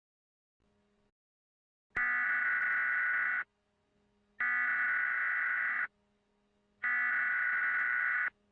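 Emergency Alert System SAME header: three identical bursts of data tones, each about a second and a half long with about a second's gap between, which carry the coded alert message at the start of a test.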